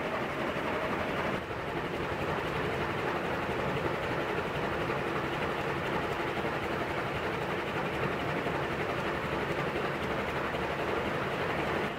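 A 1984 Nadair Industriel 140 cm ceiling fan with three heavy curved metal blades running steadily on high speed: an even rushing noise of moving air and motor.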